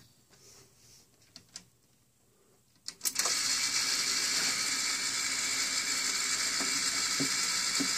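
A few faint clicks, then a click about three seconds in and a steady loud hiss of static from the Rowe jukebox's amplifier through its speakers, part of a sound-fault experiment on the amplifier.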